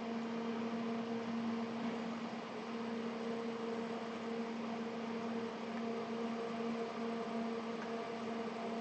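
Steady low hum holding one pitch, over an even background hiss.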